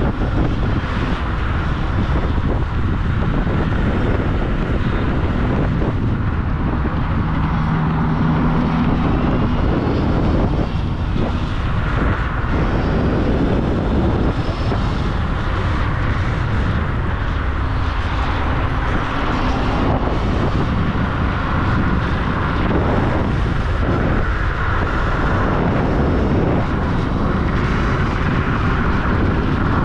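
Steady rush of wind on the microphone with road and motor noise from a Dualtron X2 Up electric scooter being ridden.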